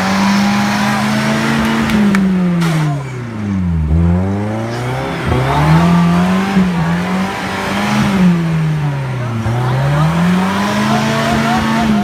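A 4x4's engine revving hard off-road, its pitch climbing, holding high, then falling away in long repeated swells of a few seconds each, with a rushing noise of spinning tyres or terrain underneath.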